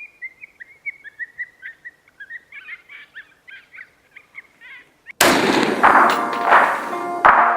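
Birds chirping in a quick series of short, high notes. About five seconds in, loud music with a heavy, regular beat cuts in suddenly and drowns them out.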